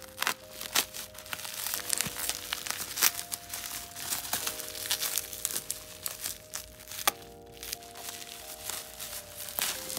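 Bubble wrap being slit with a blade and pulled apart by hand: irregular crinkling and crackling with sharp clicks. Under it, soft background music with held chords.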